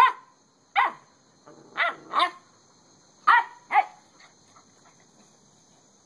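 Small puppy yapping: six short barks, mostly in quick pairs, then a few faint yips before it goes quiet. A thin steady insect trill carries on underneath.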